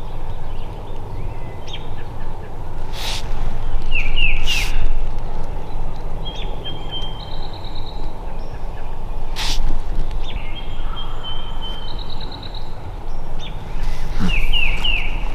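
Songbirds singing in spring woodland: a quick phrase of three downward-slurred notes, heard twice, with thin whistled notes and a short buzzy trill between. A steady low rumble runs underneath, and a few brief sharp noises cut through.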